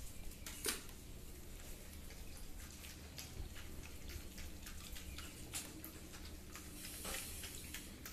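Two dogs eating wet food of meat boiled with vegetables from steel bowls: irregular wet lapping, chewing and licking clicks, with a sharper clink of a bowl on the floor about a second in.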